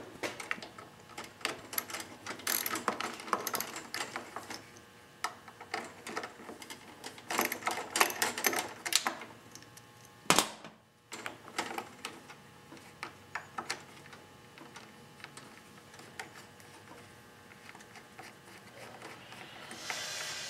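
Ratchet wrench clicking in quick runs as the quarter-inch bolts holding the air filter housing are loosened, with one sharp metallic knock about ten seconds in. Handling noise rises near the end.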